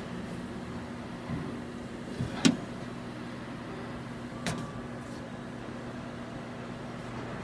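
Hoshizaki HMN-18B commercial microwave oven running with a steady electrical hum, with a sharp click about two and a half seconds in and a second, smaller click about two seconds later.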